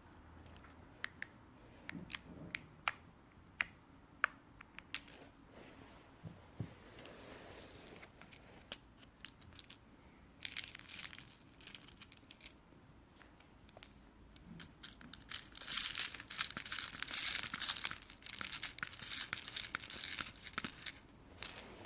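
Clear slime being pressed and stretched by hand: scattered sticky clicks and pops, then dense crackling, briefly about halfway through and again for a longer stretch near the end.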